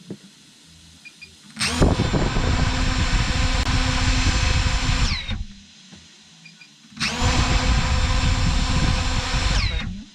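DJI FPV drone's motors spinning propellers in two runs of about three seconds each, a steady high whine that starts suddenly and drops in pitch as they spin down. This is a test run after the electronic speed controller was replaced on a motor that had been stuttering and stalling.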